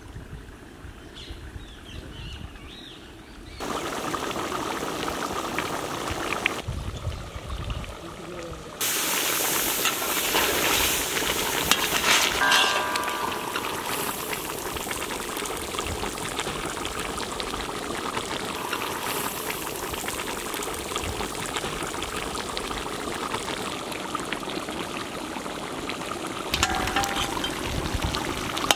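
Crab curry bubbling and sizzling in a large iron kadai over a wood fire, a steady watery bubbling that starts up a few seconds in and grows louder partway through.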